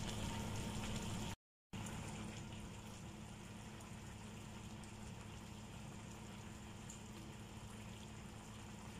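Chicken adobo simmering in its soy-and-vinegar braising liquid in a frying pan: a steady, quiet bubbling with a low hum underneath. The sound cuts out briefly about a second and a half in, then resumes a little quieter.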